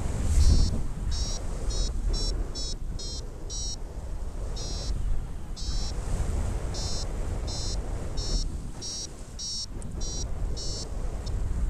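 Paragliding variometer beeping in short high-pitched bursts, about one to two a second with brief pauses, the audio signal that the glider is climbing in lift. Under it runs a steady rush of wind on the microphone.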